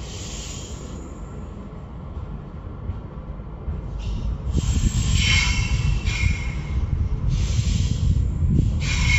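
Running noise of a moving passenger train heard from inside a coach: a steady low rumble of wheels on track. About four seconds in it gets louder, with repeated bursts of high rushing noise carrying a faint thin squeal.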